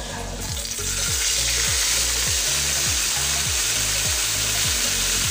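A slice of egg-soaked bread frying in hot oil in a wok. The sizzle swells over the first second as the slice goes in, then holds steady.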